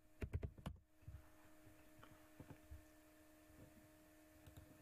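Computer keyboard typing: a quick run of keystrokes in the first second. After that comes a faint steady electrical hum with a few soft clicks.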